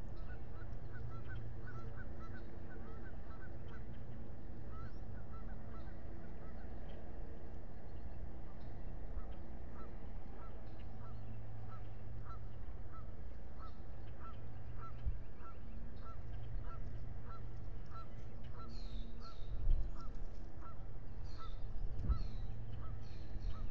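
A bird calling over and over in short, evenly spaced calls, about two a second, over a steady low rumble. Near the end a few higher, falling calls from another bird join in.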